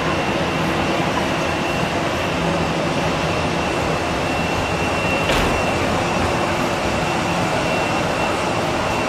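Jet engines of an Airbus A320-family airliner at taxi idle: a steady rumble with a high, even whine. A single brief click about five seconds in.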